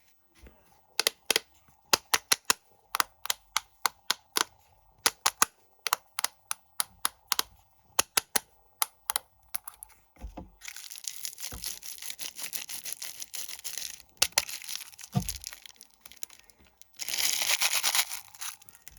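A run of sharp taps or clicks, two or three a second, on snack packaging. Then plastic snack wrappers are crinkled and torn open in two dense crackling stretches, the second one short and the loudest.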